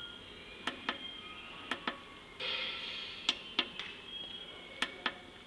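Control-panel push buttons on a DHG-9073 drying oven's digital controller clicking as they are pressed repeatedly, mostly in quick pairs about a second apart, with a brief hiss a little over two seconds in.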